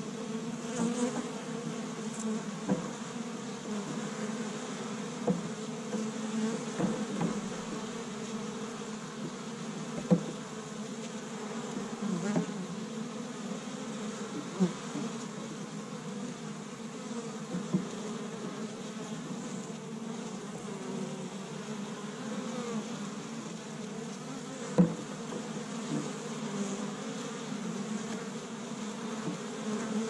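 Honey bees buzzing at a busy hive entrance: a steady hum of many wingbeats, swelling briefly louder several times as single bees pass close to the microphone.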